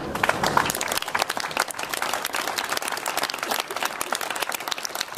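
Audience applauding, many hands clapping at once, starting right after the speaker's line and going on without letting up.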